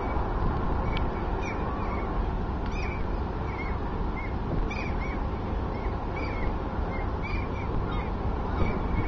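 Steady low rumble from the passing car ferry Regina Baltica, with many short chirping bird calls over it, about two a second.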